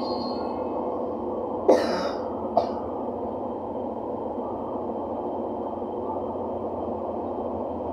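A person coughs twice, a little under a second apart, about two seconds in, the first cough louder. Underneath, a steady low rushing background noise continues.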